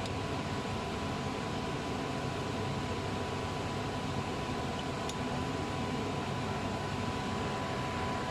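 Steady machine hum and hiss with a constant faint high tone, like a fan or blower running, with no distinct knocks or tool strikes.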